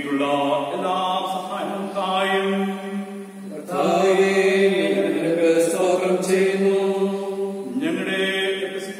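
A man chanting a liturgical prayer, intoning the words on one held reciting note with brief pauses for breath.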